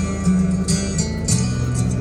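Music with guitar and a moving bass line over a regular beat.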